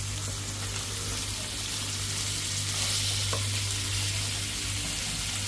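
Meat sizzling on the grill plate of a VEVOR 2-in-1 electric grill and hot pot, a steady hiss over a low steady hum, while broth steams in the central pot. The hiss swells briefly about three seconds in, and a small knock, a ladle against the pot, follows just after.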